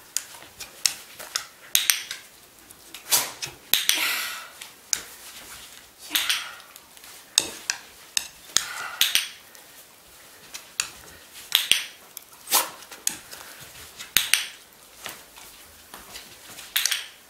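A dog moving about on a small board during trick training, with irregular sharp clicks and short scuffing and rustling noises, about one every half second to a second.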